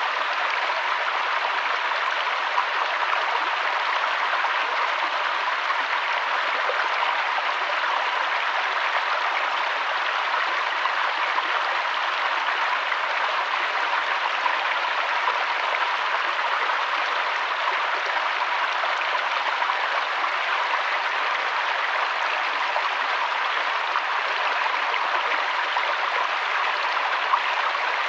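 River water flowing steadily: an even, unbroken hiss with no changes.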